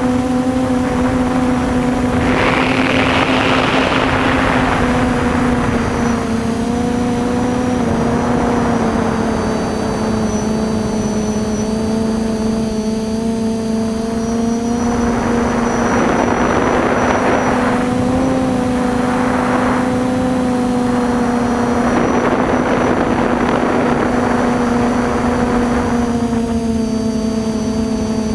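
Quadcopter's four SunnySky 2212-13 980kv brushless motors spinning 9x5 propellers, a steady droning whine heard from the onboard camera. A rushing noise swells and fades several times.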